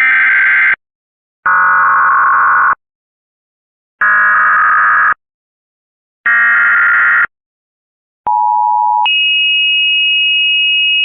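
Emergency Alert System header: four digital data bursts, each a harsh warbling screech about a second long with short gaps between. A brief low two-tone attention signal follows and jumps to a higher steady two-tone beep that holds to the end.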